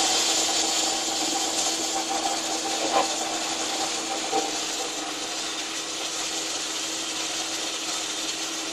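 Steady hissing rush with a constant low hum under it, the running noise of a fire training container during a live-fire exercise. A short sharp tick about three seconds in and a softer one about a second later.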